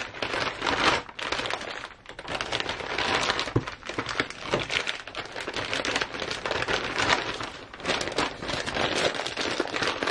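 Clear plastic parts bags crinkling and rustling as they are handled and set down, an irregular crackle throughout.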